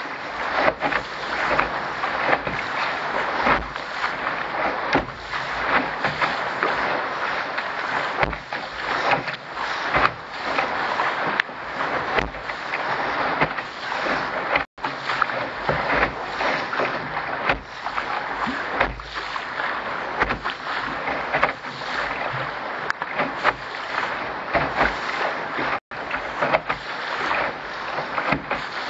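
Water rushing and slapping against the hull of a Contender sailing dinghy moving through choppy water, in uneven surges, with wind on the microphone. The sound cuts out for an instant twice.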